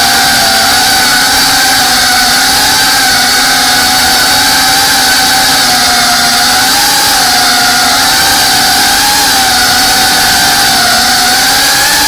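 FPV quadcopter's brushless motors and propellers whining, heard from on board the drone, the pitch wavering gently up and down with the throttle over a steady rush of air.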